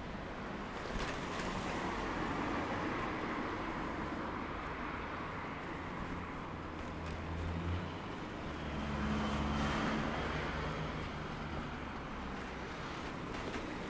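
Road traffic: vehicles passing, their tyre noise swelling and fading twice, about a second in and again around nine seconds in. The second pass carries a low engine hum.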